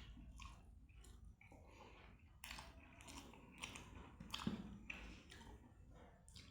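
A person chewing a mouthful of food, with faint, irregular wet mouth clicks and smacks; a few louder smacks come in the middle.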